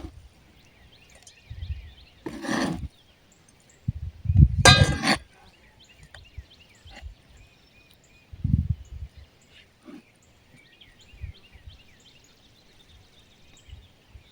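Outdoor handling and work noises: a few separate knocks and scrapes several seconds apart, the loudest about four to five seconds in. Faint short chirps repeat in the background.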